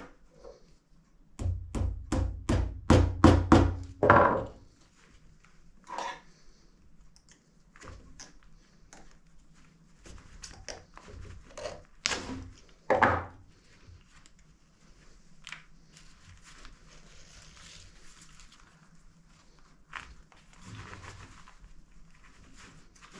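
A small hammer knocking on the thick corner of a sail laid over a wooden block: about nine sharp knocks in quick succession, then a few single knocks. Later, faint rustling of sailcloth and twine as the stitch is pulled through.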